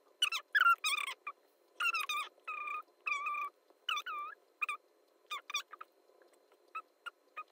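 High-pitched squeaky voice chattering in short bursts of gibberish, the voice of a googly-eyed hand puppet, the bursts bending up and down in pitch and growing sparser and fainter after about five seconds.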